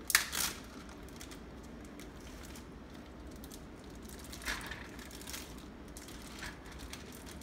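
Kitchen handling sounds: a plastic zip-top bag crinkling as raw meat chunks are tipped from it into a frying pan, a few soft noises about four to six seconds in. A sharp knock just after the start is the loudest sound.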